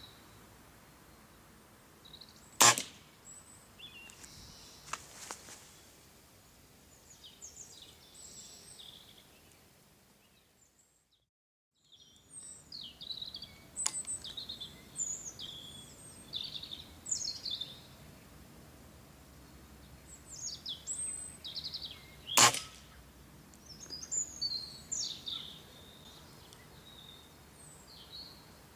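Two shots from a Weihrauch HW97K .177 underlever spring-piston air rifle, about twenty seconds apart, with small birds chirping between them. The sound drops out briefly midway.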